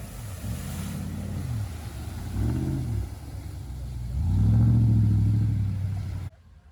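Off-road 4x4's engine revving up and down in repeated swells, the longest and loudest about four seconds in. The sound cuts off abruptly near the end.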